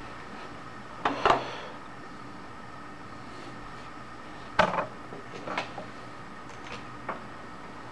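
A few short knocks and clicks, the loudest two about a second in and midway, with smaller ones after, over a steady hum with a faint high whine.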